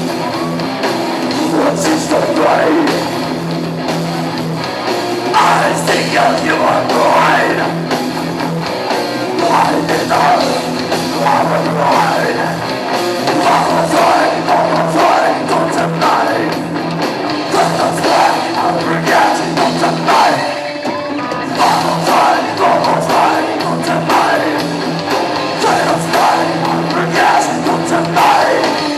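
Live rock band playing loudly with a singer over amplified guitars.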